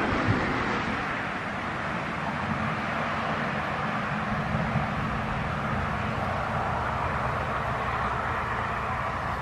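Steady outdoor background noise: an even hiss with a low hum beneath it and no distinct events.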